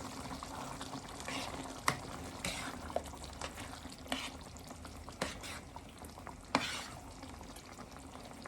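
Tomato stew base frying in a pot as it is stirred, with a steady sizzle and a spoon knocking and scraping against the pot now and then.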